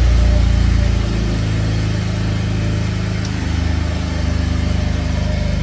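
BMW F80 M3's S55 twin-turbocharged inline-six idling, heard from inside the cabin; a little louder for the first second, then steady.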